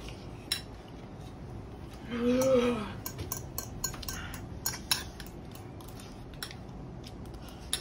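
A fork and a spoon clinking and scraping against bowls of instant noodles being eaten fast, as scattered short clicks throughout. A brief voice sound comes about two seconds in.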